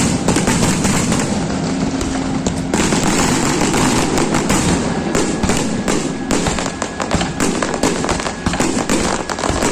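Fireworks display: a loud, dense crackle of many small bursts going off in quick succession. It starts suddenly right at the beginning and keeps up without a break.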